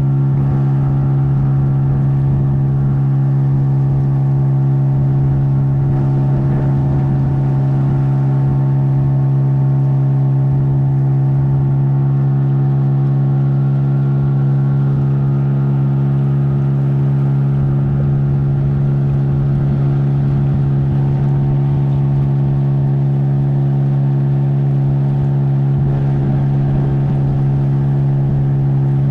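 A boat's outboard motor running steadily at constant speed, its pitch holding even throughout.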